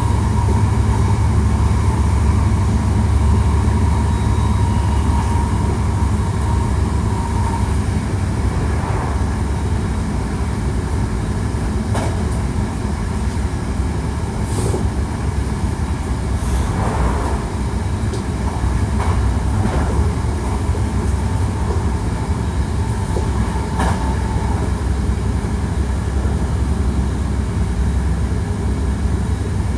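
Hankyu 1300 series electric train running steadily at speed: a continuous low rumble of wheels on rail, with a handful of brief clicks and a faint steady whine that fades after about seven seconds and comes back briefly near the end.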